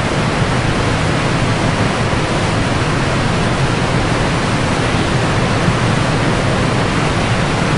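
A boat's churning wake rushing steadily, with a low drone underneath.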